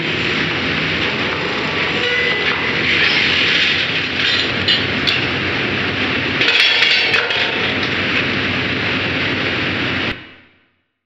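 Drilling-rig floor noise while tripping pipe: steady machinery running, with sharp metal clanks from the pipe handling (spinning chain and tongs on drill pipe). It cuts off about ten seconds in.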